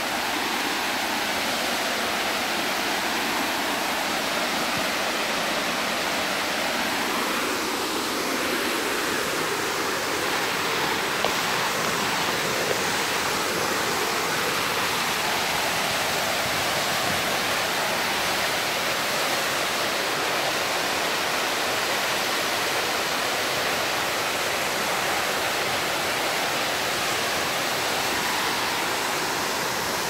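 Waterfall pouring into its plunge pool: a steady, even rush of falling water that does not let up.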